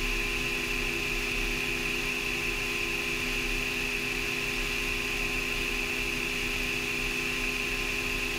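Steady in-cockpit drone of ZeroAvia's hydrogen-electric Piper demonstrator cruising on fuel-cell power alone: an electric-driven propeller and powertrain giving a constant low hum under a high whine and hiss, unchanging throughout.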